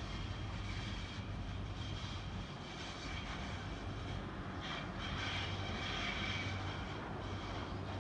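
A steady mechanical drone with a low hum and a higher hiss, swelling a little around the middle.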